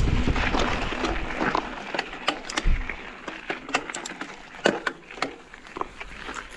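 Mountain bike on the move: a steady rush of wind and rolling noise for the first couple of seconds, then a quieter stretch of scattered sharp clicks and crackles from the tyres and bike on a rough track.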